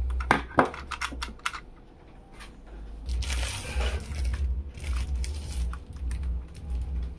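Small plastic clicks and taps from hands handling a computer motherboard at its CPU socket, a quick run of them in the first second and a half and scattered ones later, with a short rustling scrape about three seconds in. A low rumble runs underneath.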